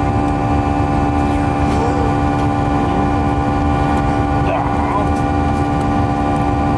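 Steady aircraft cabin drone: a low rumble from the engines and airflow with a constant hum of several steady tones. A few brief soft voice sounds rise over it.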